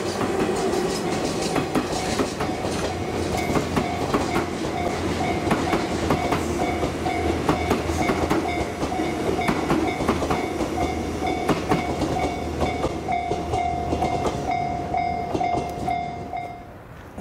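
Diesel-hauled train running on jointed track: wheels clacking over the rail joints in quick, irregular series over a low steady hum. A steady high tone grows louder over the last few seconds, then everything cuts off abruptly near the end.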